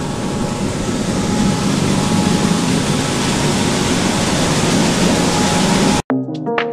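Grain-winnowing machine running steadily: a loud, even rush of air and grain over a motor hum. About six seconds in it cuts off abruptly and music begins.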